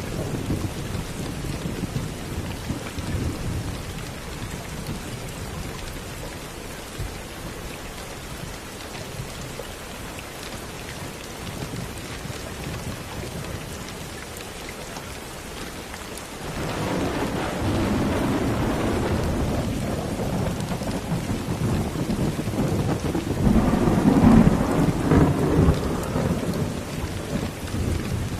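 Rain falling steadily with low rolls of distant thunder: one fading in the first few seconds, another building about 16 seconds in, and the loudest near the end.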